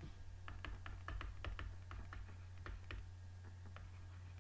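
An irregular run of light clicks and taps, about fifteen in all, from handwriting on a computer with a pointing device, over a faint steady low hum.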